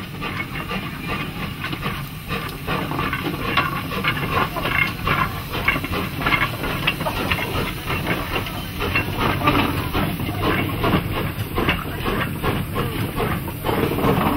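Small industrial steam locomotive working a loaded train past, its exhaust chuffing in quick, even beats over a steady hiss of steam. Toward the end the heavily loaded wagons rumble by.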